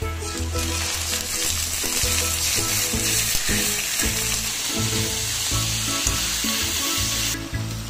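Raw chicken pieces sizzling loudly in hot oil in a metal wok with onion and garlic, stirred with a ladle as they start to brown. The sizzle starts just after the beginning and cuts off suddenly near the end, over background music.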